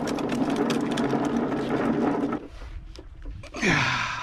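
Small Gardenline push lawn mower being rolled over asphalt, its wheels and deck giving a steady rattling rumble that stops about two and a half seconds in. Near the end comes a short sound that falls steeply in pitch.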